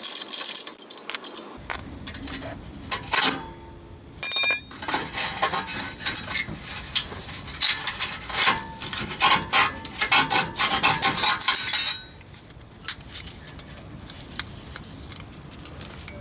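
Metal tools and exhaust hardware clinking and clattering while clamps are worked loose and fitted on a truck's exhaust pipe. There is a brief ringing metallic clang about four seconds in, then a long run of close clicking and scraping that eases off about twelve seconds in.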